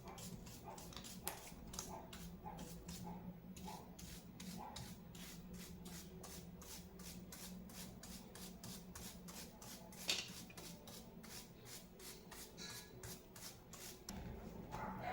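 A mechanical keyboard being handled: a quick, even run of light clicks, about two or three a second, with one louder click about ten seconds in, over a low steady hum.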